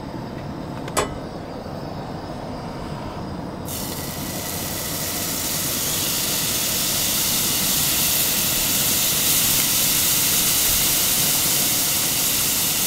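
Fish fillets sizzling in a hot cast-iron skillet on a propane camp stove: the sizzle starts suddenly about four seconds in as the first pieces go into the pan, grows louder as more are added, then holds steady. A single sharp clink about a second in.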